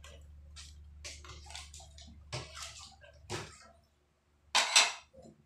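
Dishes being handled over a wash basin and plastic dish rack: water dripping and splashing with light rubbing and clinks, then two louder bursts in quick succession near the end.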